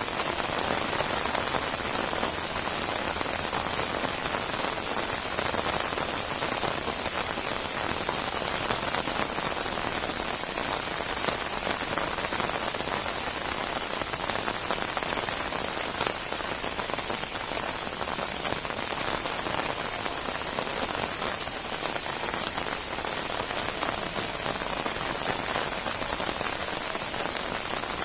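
Steady heavy rain falling and pattering on surfaces, a dense even hiss of many drops.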